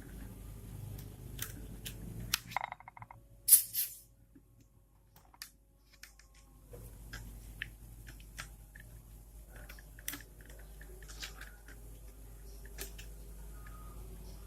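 Light, scattered clicks and taps on a laptop, with two sharper clicks about three and a half seconds in, followed by a couple of seconds of near quiet.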